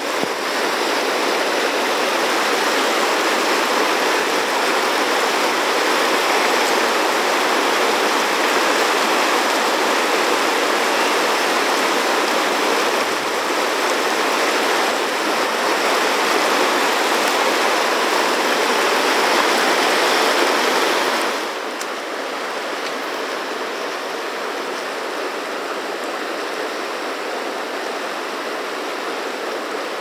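River rapids rushing steadily over boulders, a loud continuous whitewater roar that drops suddenly to a lower level about two-thirds of the way through.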